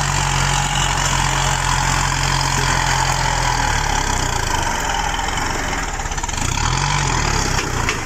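Farm tractor's diesel engine running steadily as it pulls a disc plough through wet paddy soil. Its pitch dips and rises briefly about six to seven seconds in.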